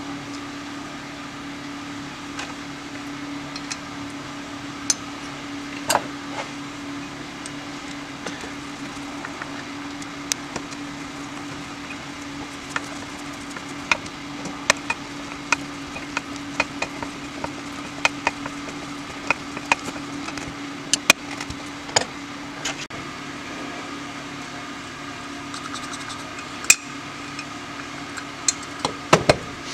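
Scattered small metallic clicks and taps of a screwdriver and carburetor parts being handled on a steel workbench while the accelerator pump jet cluster is fitted, over a steady low hum.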